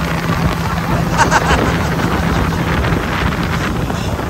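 Steady engine rumble with wind noise on the microphone.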